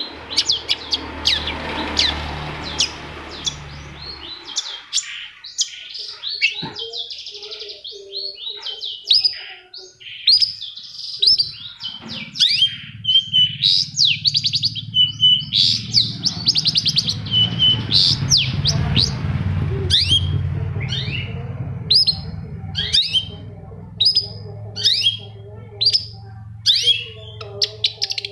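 Long-tailed shrike (cendet) singing a rapid string of sharp, high chirps and quick downward-sweeping notes. A low steady hum sits underneath for the first few seconds and again through the second half.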